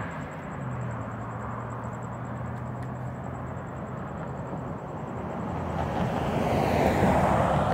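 Road traffic: a car passing and fading away at the start, a quieter stretch with a low steady hum, then another car approaching and growing louder over the last couple of seconds.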